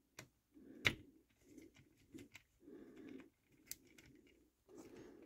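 Faint clicks and light metal taps of a knife being adjusted in a knife-sharpening jig while a screwdriver turns the jig's clamp screw; the sharpest click comes about a second in, with soft handling noise between the clicks.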